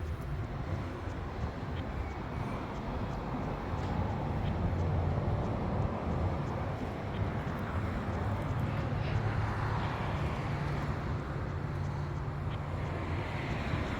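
Steady low engine-like hum over outdoor background noise, swelling slightly about halfway through.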